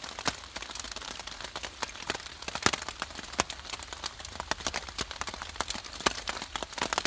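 Rainwater dripping and trickling into a small open metal tin held under the edge of a rock overhang: irregular ticks and taps, several a second, over a faint steady hiss of rain.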